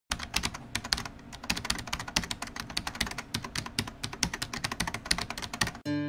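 Rapid, irregular keyboard typing clicks that stop abruptly just before the end, as plucked-string music begins.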